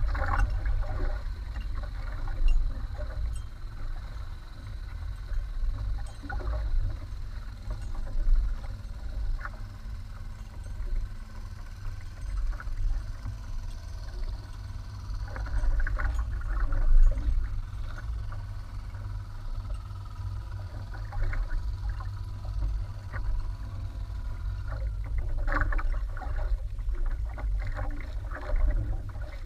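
Water sloshing and slapping against the hull of a small outrigger fishing boat on open sea, over a steady low rumble, with louder sloshes around the middle and near the end.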